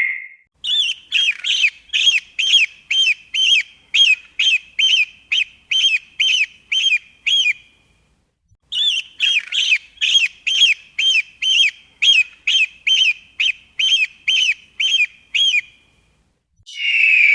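Eagle calling in two runs of about fifteen sharp, high piping notes, roughly two a second, with a short pause between the runs. Near the end a longer, rougher scream begins.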